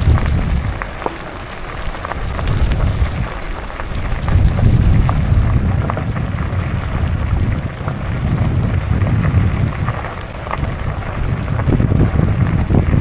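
Wind buffeting the microphone: a loud, rough low rumble that swells and eases every few seconds, with scattered faint clicks.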